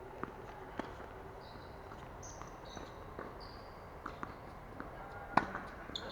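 Tennis play: a sharp racket-on-ball hit about five seconds in is the loudest sound. Lighter knocks come before it, and a few short high squeaks in the middle.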